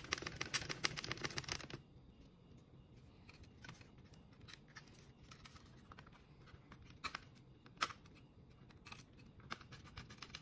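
Faint handling sounds of a small screwdriver and hands working inside an open laptop: a dense clatter and rustle for about the first two seconds, then scattered light clicks of the screwdriver on screws and parts.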